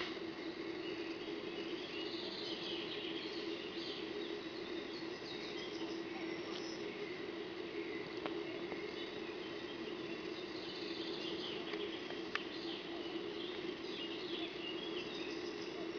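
Outdoor woodland ambience: a steady low hum with many faint, short, high chirping calls scattered throughout, and a couple of faint clicks about halfway through and again later.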